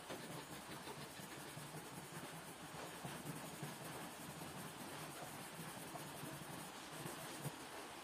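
Blue coloured pencil scratching on paper while shading, faint and continuous, with a single short tap near the end.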